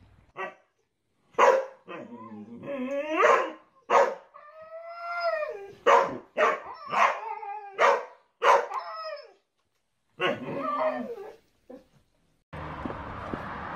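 A husky and a boxer puppy barking and howling at each other in play: short, sharp barks mixed with longer howling calls that rise and fall in pitch.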